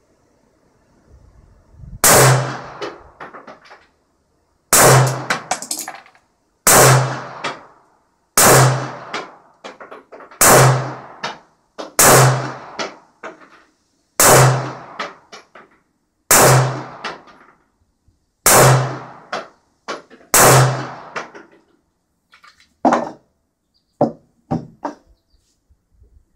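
Ten 9mm shots from a CZ75 Shadow SP-01 pistol, fired at a slow, steady pace about two seconds apart, each ringing out under the wooden roof of a covered firing shed. A few light clicks follow near the end.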